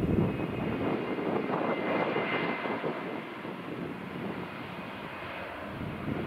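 Boeing 757-200 jet engines running as the airliner rolls along the runway: a loud roar with a high whine over it, loudest in the first half and easing off after about three seconds.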